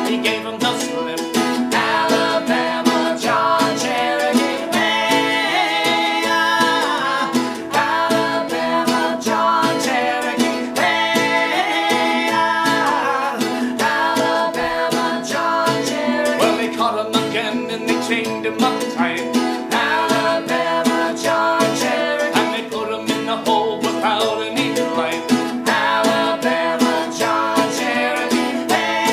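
Acoustic string band of mandolin, banjo and acoustic guitar playing a folk song, with a voice heard at times.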